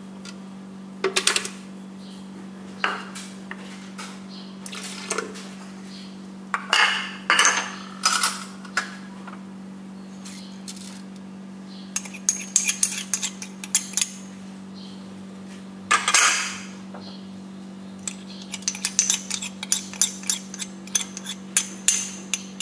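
Spoon and small dishes clinking, tapping and scraping against a blender jar as egg yolks and vinegar are added by hand, in irregular clusters, with one longer scrape about two-thirds of the way through. A steady low hum underlies it.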